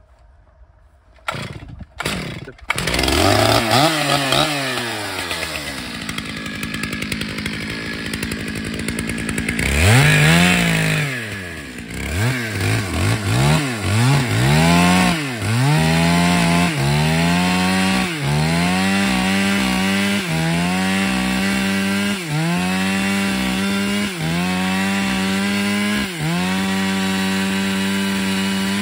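Stihl MS 881 two-stroke chainsaw started up about two seconds in, revving and then settling to idle. From about ten seconds in it runs at full throttle in an Alaskan-style chainsaw mill ripping a slab from an oak log, its engine speed dipping briefly under load about every second or two.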